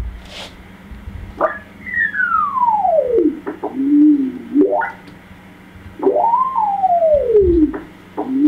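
Beat note of an Icom HF transceiver's built-in crystal calibrator marker, heard from the receiver as the tuning knob is turned. It is a single pure whistle that slides up to a high pitch and falls low several times as the dial sweeps across the marker signal, down toward zero beat. A click at the start.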